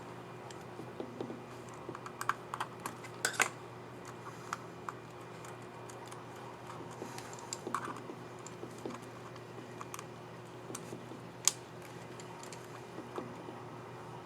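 Scattered small plastic clicks and taps from a Dell Inspiron 7573 laptop keyboard as a keycap and its scissor mechanism are handled and pressed into place; two sharper clicks stand out, one about three seconds in and one past the eleven-second mark.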